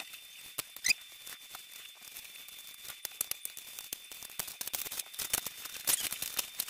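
Bubble wrap and plastic wrapping crinkling and crackling as it is cut and pulled off a cardboard box, in irregular clusters of small crackles, with a short rising squeak about a second in.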